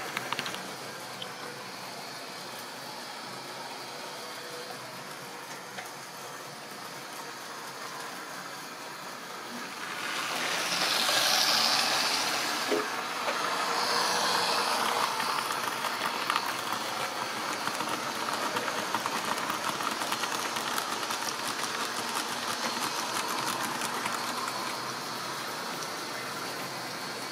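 Model railway trains running on the track: a steady whir and rattle of small motors and wheels, which swells louder for several seconds about ten seconds in as a train passes close by.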